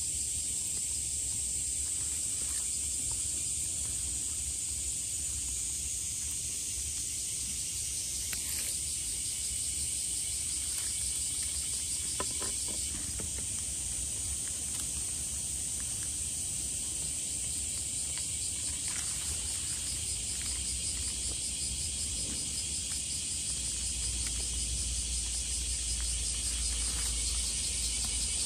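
Steady, high-pitched chorus of insects trilling without a break, with a few faint clicks about twelve seconds in.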